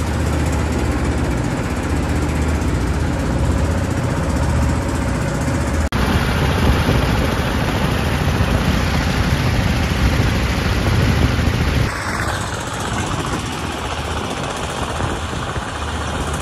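Engine of a wooden river trawler running steadily under way, with wind and the rush of choppy water against the hull. The sound changes abruptly twice.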